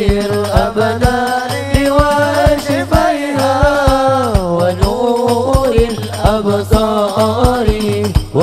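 Habsyi-style sholawat: a voice sings a gliding, melismatic devotional melody over a steady beat of hand drums struck a few times a second.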